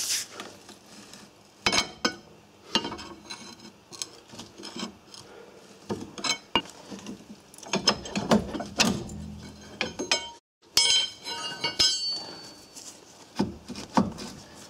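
Irregular metal clinks and knocks as a rusted, stuck brake caliper is worked loose from its disc on a Volvo 940, with a clattering stretch about eight seconds in and a quick run of clicks about eleven seconds in.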